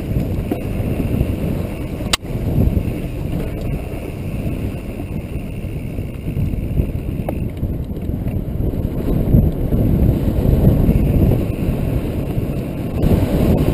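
Mountain bike descending a dry dirt trail: its tyres roll over dirt and gravel while wind buffets the mounted camera's microphone in a continuous rumble. There is one sharp click about two seconds in.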